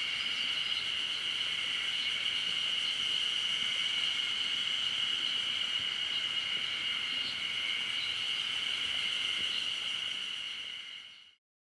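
A steady, high, unbroken chorus of insects in a forest, with a few faint bird chirps over it; the sound fades out near the end.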